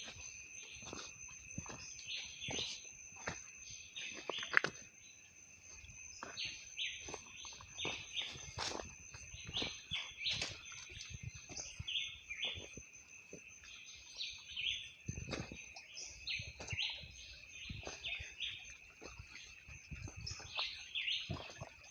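Many birds chirping in short calls over a steady high-pitched insect drone. Frequent irregular short thumps and rustles run through it, like steps on rough ground.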